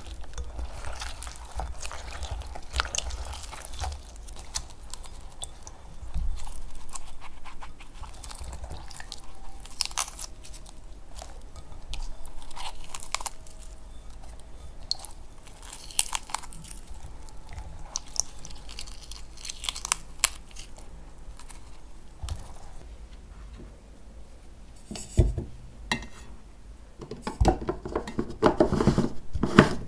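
Hands swishing strawberries in water in a glass bowl, then handling them with small crunchy tearing sounds as the green tops are pulled off. Scattered clicks run throughout, and louder knocks of a plastic blender cup come near the end.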